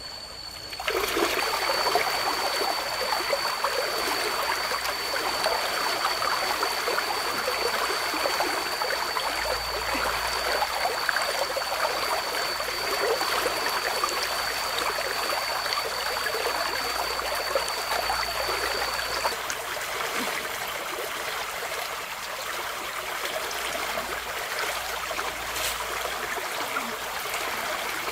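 Rushing water of river rapids, a steady splashing flow that comes up sharply about a second in. A thin, steady high tone runs over it until about two-thirds of the way through.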